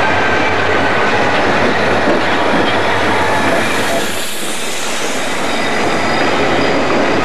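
Rio Grande diesel-electric locomotives passing close by, engines working hard, a loud dense rumble with thin steady high squealing tones over it. The low rumble eases a little about four seconds in.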